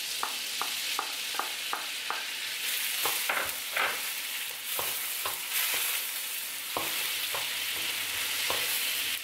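Chopped garlic sizzling in hot melted butter in a wok, with the short clicks and scrapes of a wooden spatula stirring against the pan, about two or three a second at first, then irregular.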